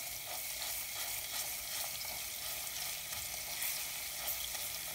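Olive oil sizzling in a stainless steel pot as tomato and pepper paste fry in it to cook off their raw smell, with a metal spoon stirring and scraping against the pot. The sizzle is a steady hiss with small crackles throughout.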